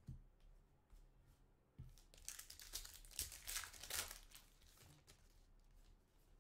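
Foil trading-card pack being torn open and crinkled in the hands, a dense crackle for about two seconds starting about two seconds in. Two soft knocks come before it.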